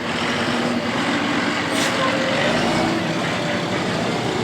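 Outdoor street noise with a vehicle engine running steadily, and a short hiss a little under two seconds in.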